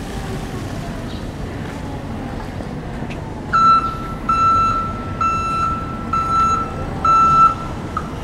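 Reverse alarm of a Toyota 8FBN18 electric forklift beeping about five times at one high pitch, starting about three and a half seconds in, each beep about half a second long: the sign that the forklift is backing up. Underneath is steady background noise.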